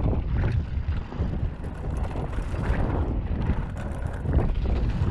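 Mountain bike riding fast down a bumpy dirt trail: wind buffeting the action camera's microphone over a low rumble of tyres on dirt, with irregular knocks from the bike going over the ground.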